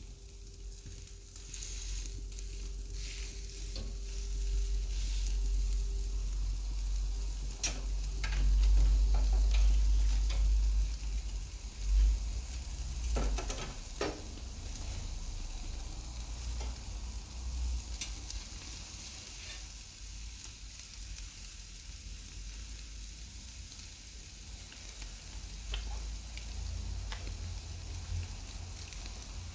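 Thick entrecôte steak sizzling and crackling on a hot cast-iron grill over wood embers, searing its second side in the final sear of a reverse sear. A few sharp pops stand out, about a third of the way in and again near the middle.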